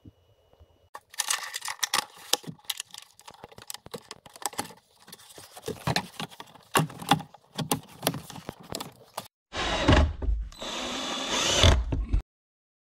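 A run of sharp clicks, knocks and rattles from working at a plastic under-dash panel, then a cordless drill-driver runs in two short bursts, the second about a second and a half long and the loudest.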